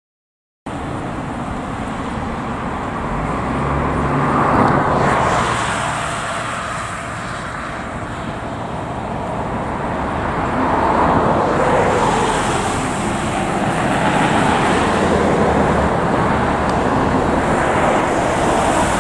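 Passing road traffic, including a fire department Chevrolet Tahoe SUV: engine and tyre noise swelling and fading several times as vehicles go by, with no siren.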